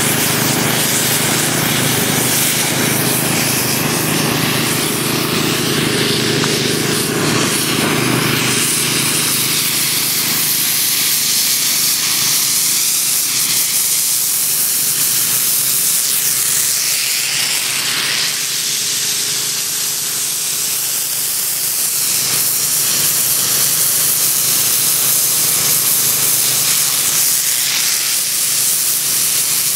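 Steady hiss of a KM Crackjet II air lance blowing a jet into an asphalt crack as it is worked along the crack. A low machine hum runs underneath and fades about eight seconds in.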